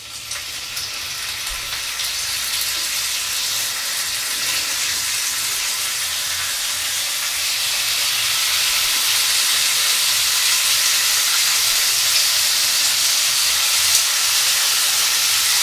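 Bacon strips sizzling in a hot frying pan, a steady spitting hiss that grows louder over the first several seconds as the strips go in, then holds.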